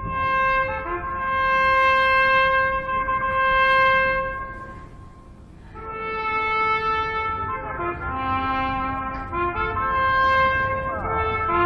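Slow brass melody of long held notes, trumpet-like, each note swelling and fading. A long first note dies away about five seconds in, and after a short lull a phrase of shorter, changing notes follows.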